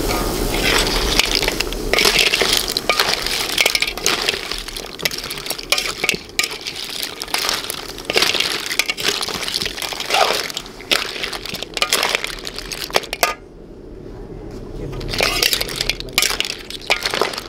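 Metal spatula stirring clams, mussels and corn around a steel wok: shells clattering and the spatula scraping the pan in repeated uneven strokes. It stops for about a second about three-quarters through, then starts again.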